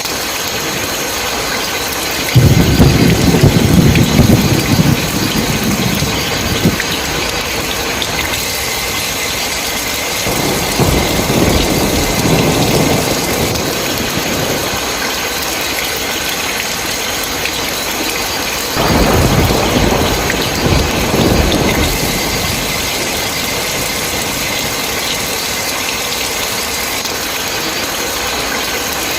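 Steady heavy rain with three rolls of thunder. The loudest starts suddenly about two seconds in, and two more come at about ten and nineteen seconds.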